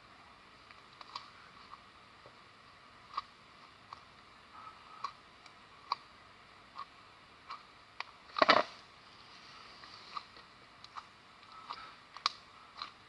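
Homemade metallic slime being handled: scattered small sticky clicks and taps, with one louder, longer squelch about eight and a half seconds in.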